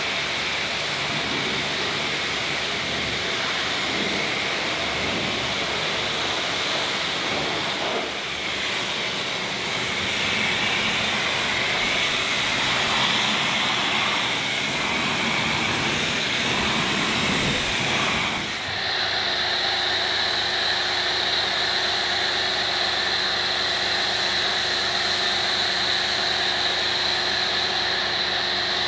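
Pressure washer spraying a jet of water over a car's bodywork, a loud hiss that flickers as the lance sweeps. About two-thirds of the way through it changes to a foam cannon spraying snow foam, with the pressure washer's motor running as a steady whine under the spray.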